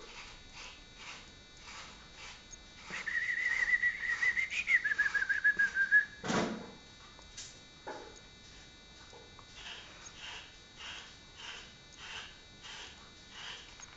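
Malinois (Waterslager) canary singing a rapid rolling trill on one pitch for about three seconds, stepping down to a lower pitch partway through. Soft short notes then repeat steadily.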